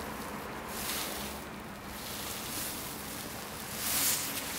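Rustling of a textile winter motorcycle glove and jacket sleeve as the hand flexes, over a steady hiss. There is a brief swell about a second in and a louder one near the end as the hand clenches into a fist.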